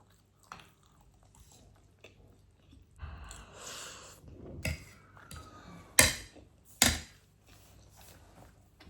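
Close-up eating sounds: chewing with small clicks of cutlery and dishes, a stretch of rustling about three seconds in, then two loud sharp clacks about a second apart near the six- and seven-second marks.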